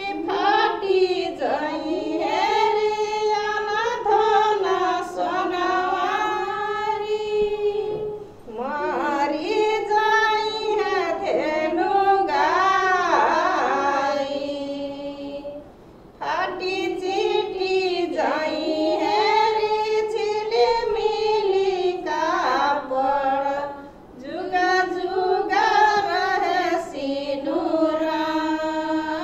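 Women singing a song in long, held phrases, with a brief pause about every eight seconds.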